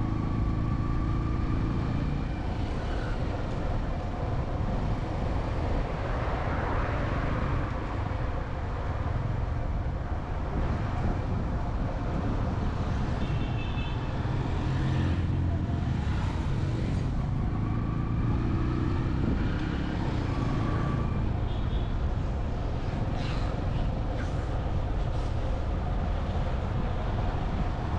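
Road traffic: vehicle engines running and passing, with a steady low rumble.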